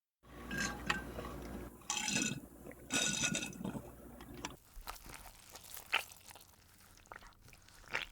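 Sound effect of liquid splashing and dripping, with scattered sharp clicks, starting abruptly after a brief gap. The loudest bursts come about two and three seconds in, and fainter clicks follow.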